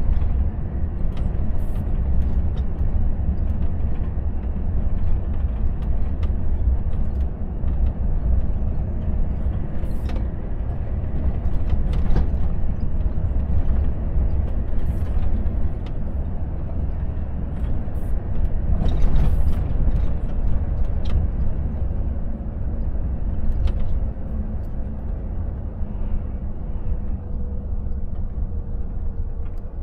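Steady low rumble of a Volvo FH truck heard from inside its cab while driving: engine and road noise, with occasional light clicks and rattles. Near the end a faint whine slowly falls in pitch as the truck slows.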